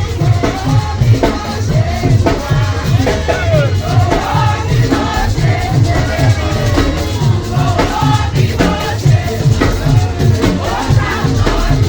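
Music with a lead voice singing over a steady bass and drum beat.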